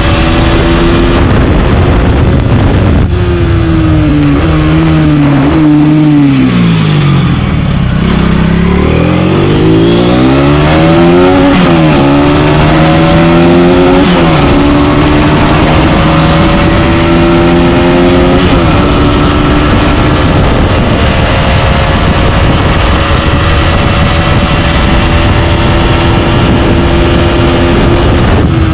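Aprilia RS4 125's single-cylinder four-stroke engine ridden hard: the revs rise and fall, sink low about seven seconds in, then climb again with quick drops at gear changes, and hold high and nearly steady through the second half. The engine revs out freely.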